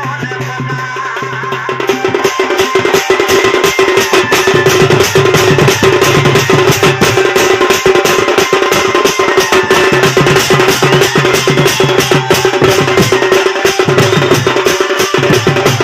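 Large barrel drum (dhol) beaten fast and hard with a stick in a driving folk-dance rhythm, over a steady held tone; the drumming grows louder about two seconds in.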